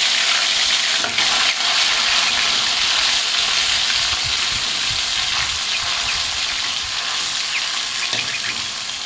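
Raw minced meat sizzling in hot ghee in a steel karahi, just added and beginning to brown, with a metal spoon scraping and stirring through it. The sizzle is steady and eases slightly toward the end.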